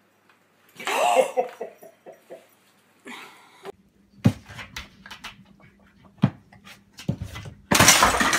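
A pet's cry about a second in, breaking into a few short pulses, followed by scattered clicks and knocks and a loud rustling burst near the end.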